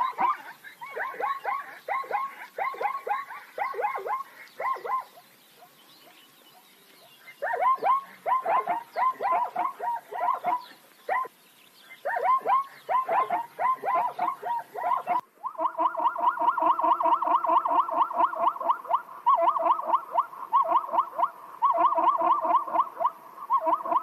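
Plains zebras calling: rapid runs of short, barking, yelping calls that come in bouts with brief pauses. About fifteen seconds in, the sound switches abruptly to a denser, steadier run of calls with a lower tone beneath.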